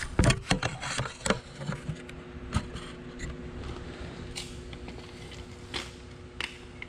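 Camera handling noise: knocks and clatter in the first second or so as the camera is set down on the concrete shop floor, then a few scattered single clicks and taps over a steady faint hum.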